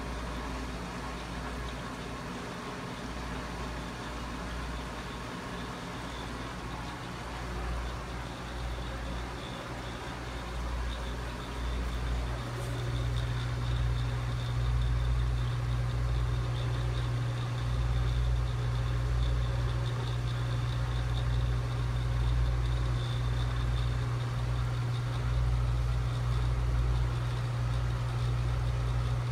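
Steady low hum of a mains-powered motor, louder from about twelve seconds in, with a faint high whine above it.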